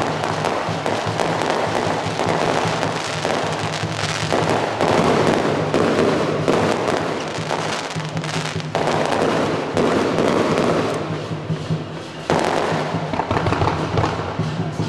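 Fireworks crackling and bursting in a dense, continuous rattle of small reports. The rattle eases briefly about twelve seconds in, then picks up loud again.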